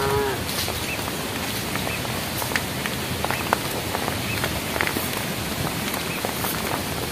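The tail of a cow's high-pitched moo, cut off just after the start, followed by a steady hiss with scattered light ticks.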